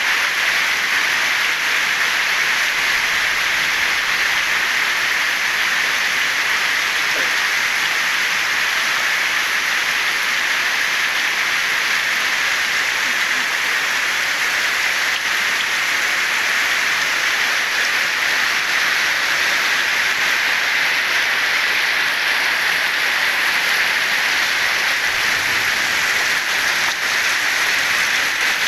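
Heavy rain falling steadily on a pond, a dense, even hiss of drops on the water that neither rises nor falls.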